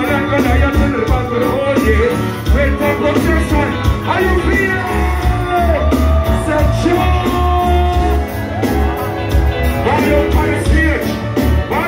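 Live reggae band playing: a pulsing bass line, electric guitar, drums and keyboards, with a male singer's voice over it holding one long note in the middle.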